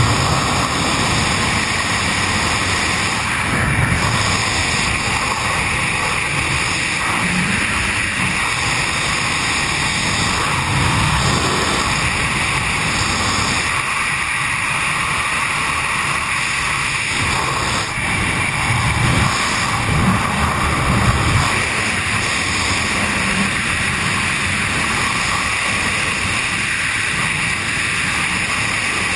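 Rushing wind noise on a GoPro's microphone during wingsuit flight: a loud, steady roar with uneven low buffeting that swells several times, most strongly about two-thirds of the way through.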